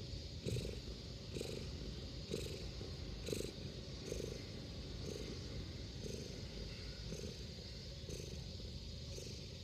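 Domestic cat purring in a contented mood, a steady low rumble that swells about once a second as it breathes in and out.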